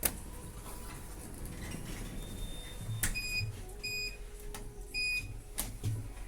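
Three short, identical electronic beeps from a lift, about a second apart, with a few soft knocks.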